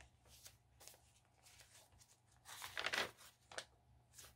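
Paper rustling as the pages of a handmade paper junk journal are handled and turned, faint at first, with one louder rustle of about half a second roughly two and a half seconds in and a short one just after.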